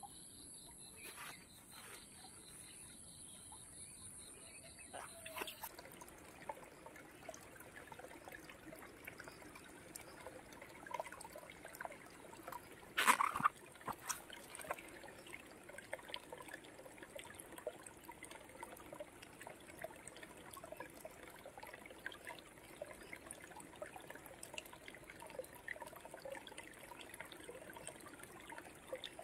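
Insects shrilling with a steady, pulsing high chirr for the first five seconds or so. Then water trickles, with many small scattered ticks and one sharp knock about thirteen seconds in.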